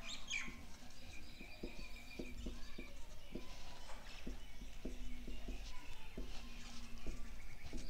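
A marker writing on a whiteboard: a run of short taps and scratches as the letters go down, with a thin squeak for a couple of seconds early on, over a steady low hum.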